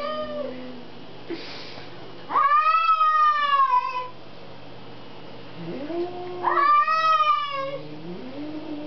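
Angry domestic cat yowling at another cat: low drawn-out moans that rise into two loud, wavering yowls, about two and a half and seven seconds in. This is the threatening caterwaul of a cat standoff.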